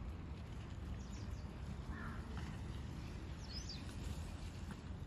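Outdoor ambience: a steady low rumble with a few short, high bird chirps, the clearest pair about three and a half seconds in, and a faint call, perhaps a distant crow, about two seconds in.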